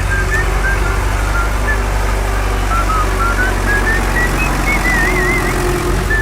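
Steady low engine rumble, like a running tractor, with a string of short high whistling notes over it and a wavering trill near the end.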